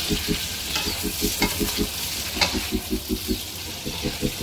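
Shrimp and vegetables sizzling in a nonstick pan while a spatula stirs them, scraping the pan a few times. A fast pulsing low hum runs underneath.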